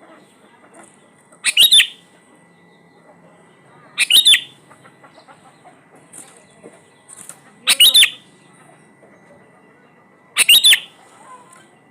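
Sooty-headed bulbul (kutilang) giving four short, loud calls, spaced about three seconds apart.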